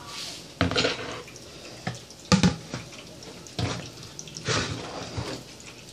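Chicken pieces deep-frying in a pot of hot oil, a steady crackling sizzle, with a few sharp knocks and clatters, the loudest a little past two seconds in, as a plastic container is handled on the counter.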